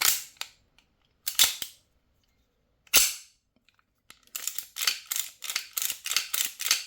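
CO2 Colt 1911-style air pistol firing: three single shots about a second and a half apart, then a quick string of about ten shots, several a second.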